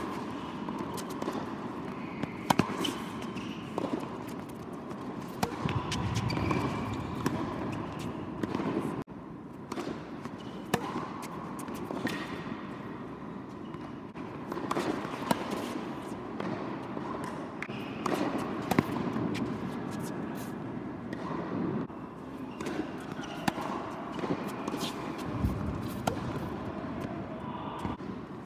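Tennis ball bouncing on an indoor hard court, with footsteps and scattered sharp knocks over the steady background of a large hall. The sound breaks off abruptly about nine seconds in and resumes.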